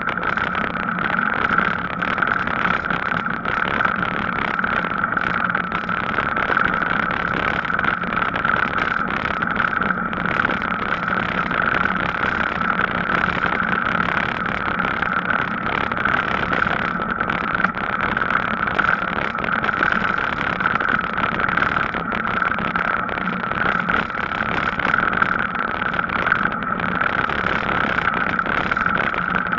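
Steady ride noise from an e-bike rolling along a tarmac cycle path: a constant rushing of tyres and air, with an even steady hum running underneath.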